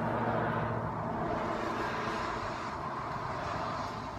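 Steady outdoor motor-vehicle noise: a continuous rumble with a low engine hum.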